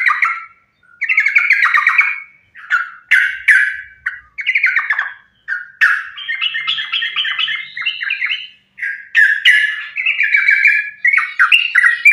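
Yellow-vented bulbul (trucukan) singing loudly in rapid, chattering phrases, one after another with only short pauses. This is the continuous, combative song that keepers play to coax other trucukan into singing.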